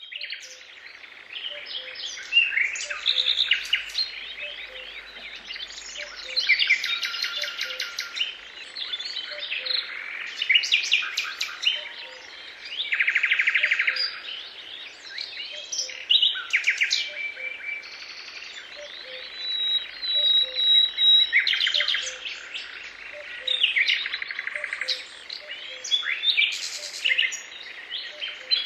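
Several songbirds singing at once, a dense chorus of trills, chirps and warbling phrases.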